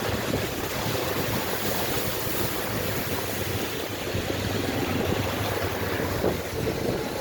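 Steady rushing wind noise on the microphone over a low vehicle rumble.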